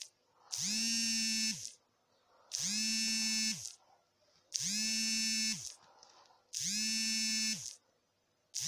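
An electric buzz going on and off in a regular pattern: four buzzes of about a second each, two seconds apart. Each one rises quickly in pitch as it starts, holds one steady tone, and falls away as it stops.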